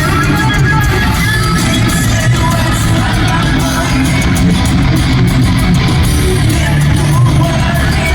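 Thrash metal band playing live at steady high volume: distorted electric guitars over bass and drums.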